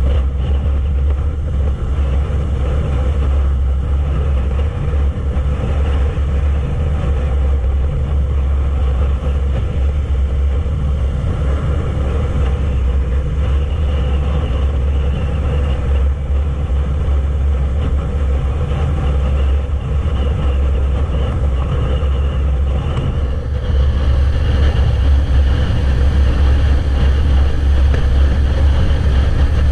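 Yamaha YZF-R3's 321 cc parallel-twin engine running at a steady cruise, mixed with heavy wind noise rushing over the camera microphone on the moving bike. The sound grows louder about three quarters of the way through.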